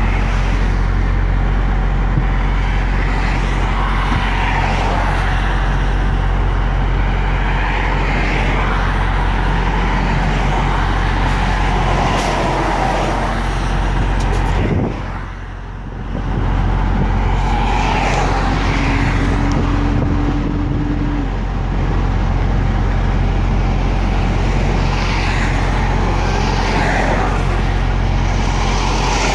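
Steady engine drone and road noise inside a truck cab, with other traffic passing. The sound drops briefly about halfway through, and a faint rising whine follows.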